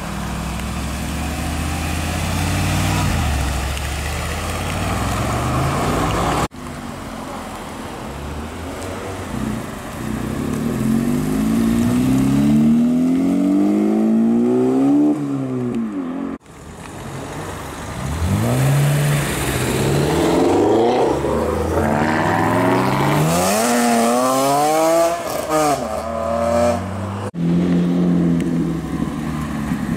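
Performance cars pulling away one after another in separate clips. A Mercedes G-Class's engine runs low as it turns out. A Honda Civic Type R follows, its engine pitch climbing again and again as it accelerates through the gears. Another car is then revved hard with quick rises and falls in pitch, and near the end a Porsche Cayman drives off at a steadier note.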